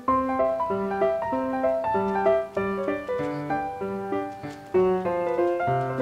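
Background music: a bouncy tune of short, separate notes.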